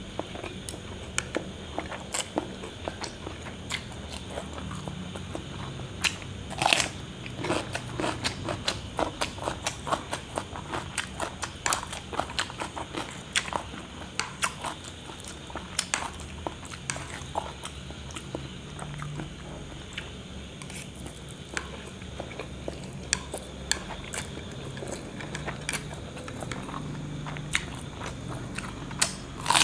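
Close-miked eating: chewing and slurping instant noodles and crunchy bites of raw cucumber, a steady run of short wet clicks and smacks from the mouth, busiest about seven seconds in.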